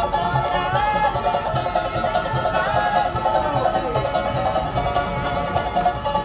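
A street group strumming several acoustic guitars and ukuleles together in a steady, rhythmic accompaniment.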